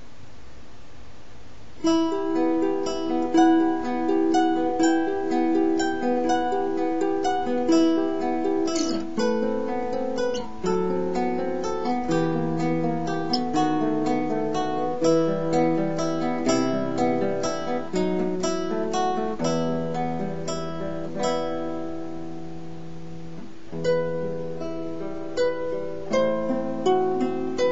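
Background music of a plucked acoustic string instrument picking a quick, light melody. A steady hiss comes first, and the notes start about two seconds in. The notes pause briefly about three-quarters of the way through and then resume.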